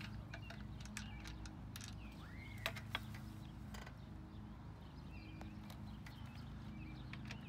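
Faint clicks and taps of small bolts and metal parts being handled and fitted into an umbrella's tilt-lever housing, with two sharper clicks close together a little under three seconds in, over a steady low background hum.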